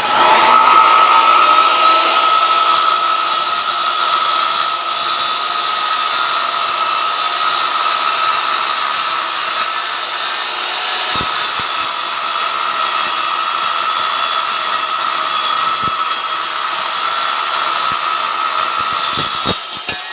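Metal-cutting circular saw cutting through steel: a steady high motor whine under a harsh cutting hiss, held at a constant pitch throughout the cut, then switched off and winding down just before the end.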